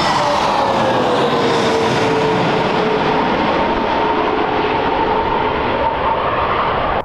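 C-17 Globemaster III's four turbofan jet engines running loud as the aircraft passes, with a whine that slides down in pitch as it goes by, then holds steady.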